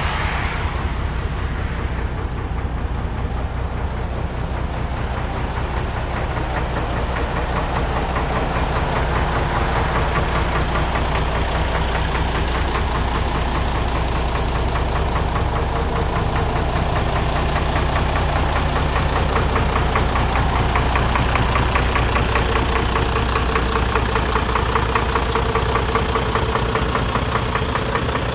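Scania P94D 230 truck's diesel engine idling steadily, with an even diesel clatter.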